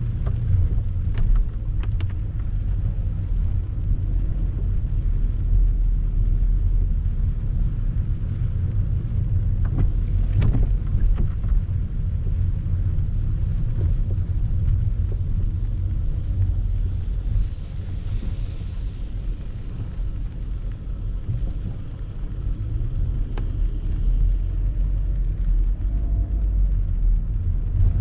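City street ambience dominated by a steady low rumble, with a few faint clicks and knocks.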